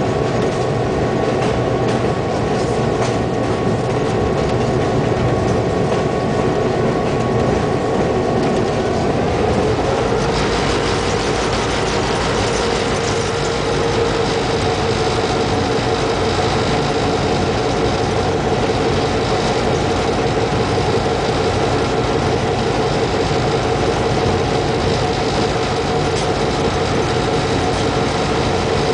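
Diesel locomotive engine running steadily, heard from the cab, with the rumble of the train rolling along the track. About ten seconds in the engine note rises slightly and grows brighter as the engine is throttled up, then holds steady.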